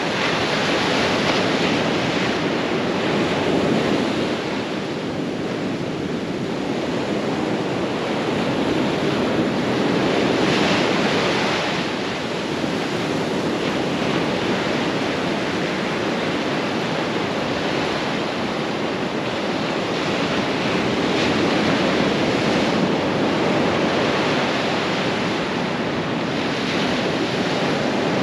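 Ocean surf breaking and foamy swash washing up the sand at the water's edge: a steady rushing wash that swells and eases every few seconds.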